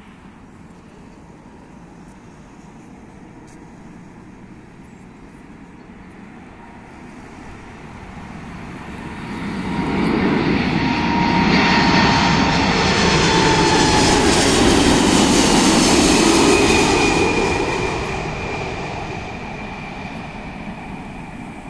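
Boeing 747's four turbofan engines at approach power as the jet passes low overhead on its landing approach. The noise swells, is loudest for about seven seconds with a whine that falls in pitch as it goes by, then fades away.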